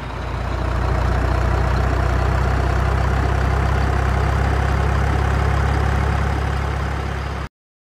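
Diesel engine of a Hino FM 285 TH tractor unit running steadily with a deep, low note as the fuel-tanker rig pulls slowly past. The sound swells over the first second and cuts off abruptly near the end.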